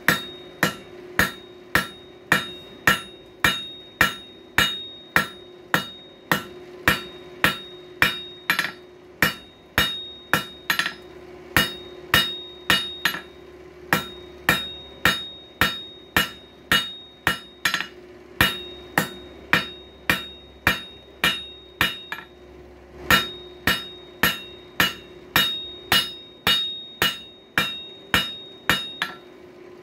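Hand hammer striking hot coil-spring steel on an anvil in a steady rhythm of about one and a half to two blows a second, each blow with a short bright ring, as the end of the bar is drawn down to a point like a nail. A steady low hum runs underneath.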